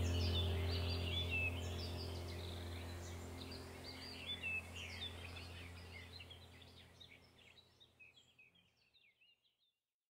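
Birdsong chirping over a low steady drone, as in a nature-ambience backing track. Both fade out gradually and have died away about nine seconds in.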